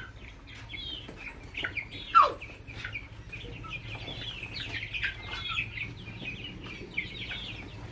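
A flock of chickens calling all the while with many short high chirps and clucks as feed is thrown to them. About two seconds in comes one louder call that falls in pitch.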